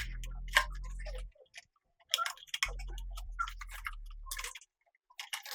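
Clock-like ticking with two held low hums beneath it. The first hum stops about a second in and the second runs from about two and a half to four and a half seconds.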